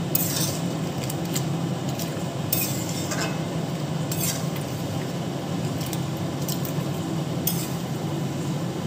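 Metal spatula stirring thick potato curry and broken papad pieces in a metal kadai, with scattered scrapes and clinks against the pan and soft wet squelching. Under it runs a steady low hum.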